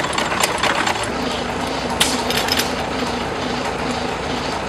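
Antique stationary gas engine running, with one sharp click about two seconds in.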